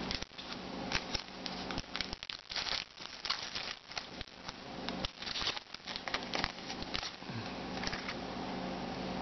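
Foil trading-card pack torn open by hand, with irregular crinkling and crackling as the wrapper is pulled apart and the cards are slid out.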